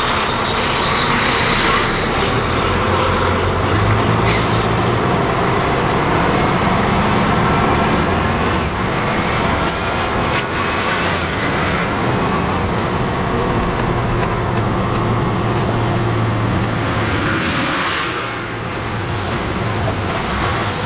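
Grain truck's heavy engine running steadily while hauling a load of corn, a constant low hum with a brief easing about eighteen seconds in.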